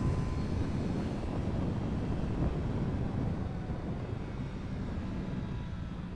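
Triumph Street Triple 765 RS inline three-cylinder engine running at a fairly steady throttle while riding, heard as a low, even rumble with no sharp revving, easing slightly toward the end.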